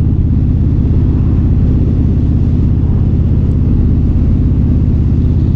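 Indian Super Chief Limited's V-twin engine running at a steady cruise with an even, rapid pulse, heard through a mic inside the rider's helmet.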